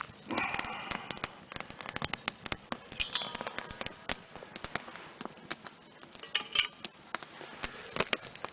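Small wood campfire crackling, with many irregular sharp pops and snaps. Brief higher-pitched clinks or chirps come about three seconds in and again near six and a half seconds.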